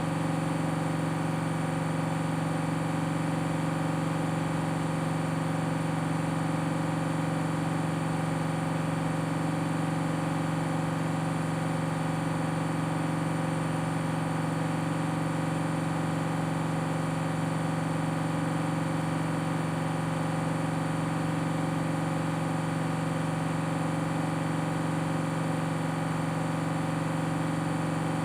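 Washing machine drum spinning at high speed on a 1600 rpm spin, a steady hum that holds one pitch throughout.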